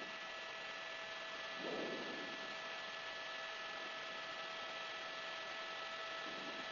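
Steady hiss with a faint electrical hum and a few thin steady tones, the background noise of an open audio feed, with a brief faint swell about two seconds in.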